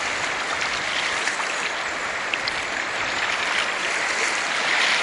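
River water flowing over a stony bed at the bank, a steady rushing.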